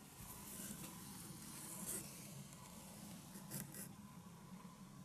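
Faint steady low hum of a drain-jetting tanker's engine running in the street, heard through a window, with brief rustles of a net curtain brushing the camera about two seconds in and again at about three and a half seconds.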